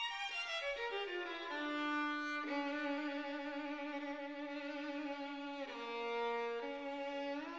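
Violin melody: a quick falling run of notes, then long held notes with vibrato, stepping down about six seconds in and sliding back up near the end.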